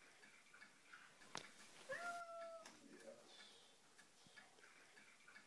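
A Siamese cat gives one short meow about two seconds in: it rises briefly, then holds a level pitch for under a second. A sharp click comes just before it.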